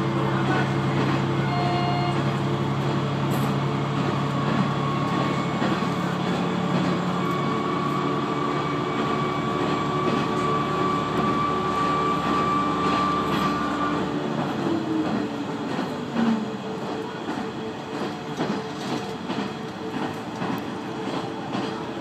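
Inside a KiHa 120 diesel railcar: the diesel engine pulls with a steady drone and a higher whine. About fourteen seconds in, the power is shut off and the engine note sinks away, leaving the car coasting with the wheels clicking over rail joints.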